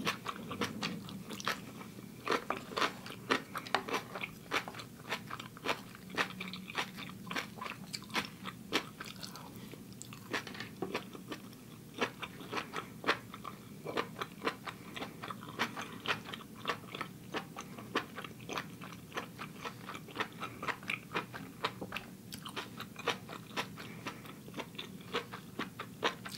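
Close-up sound of a person chewing and biting seared king oyster mushroom 'scallops', a steady run of short sharp mouth clicks at about two or three a second.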